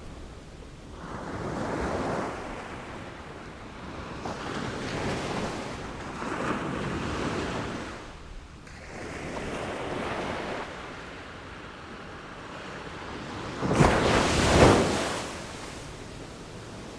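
Ocean waves washing in one after another in slow swells, with a louder, sharper crash about fourteen seconds in.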